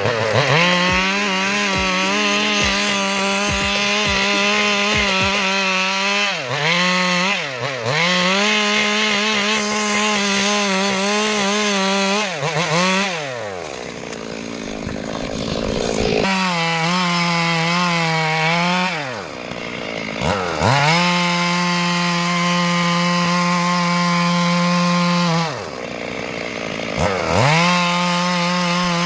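Stihl MS 382 two-stroke chainsaw running at high revs while cutting wood. Its pitch drops sharply and climbs back up several times, with one longer dip near the middle.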